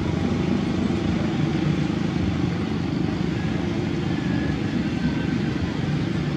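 Steady low rumble of motor vehicle noise, even in level with no clear beat or pitch.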